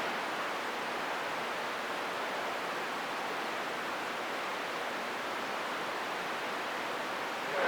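CB radio receiver hissing with steady static between transmissions, no signal coming through.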